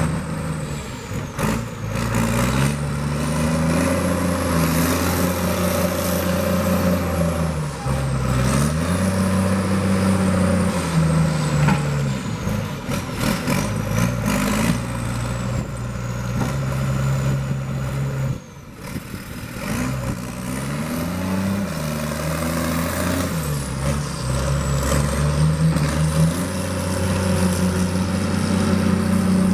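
Heavy diesel engine of logging equipment revving up and down over and over as the machine works. A thin high whine rises and falls along with it, and the engine drops off briefly past the middle.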